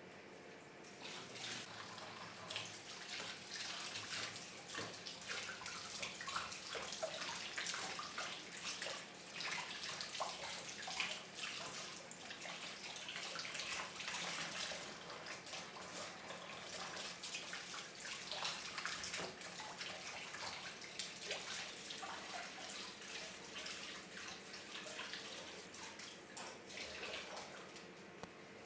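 Water running from a tap into a sink with irregular splashing. It comes on about a second in and stops abruptly near the end.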